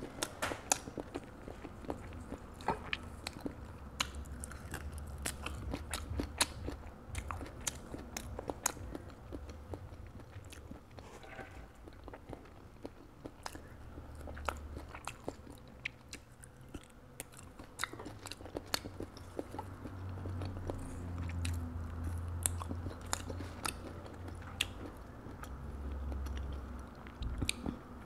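Close-up chewing of balut duck egg and herb leaves: wet mouth sounds with many small, irregular clicks and smacks.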